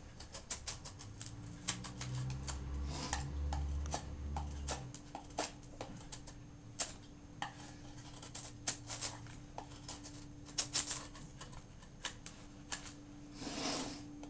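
Benchmade Mini-Rukus folding knife's S30V blade carving a wooden 2x2: irregular scraping cuts and small clicks as chips come off, with a faint steady hum underneath.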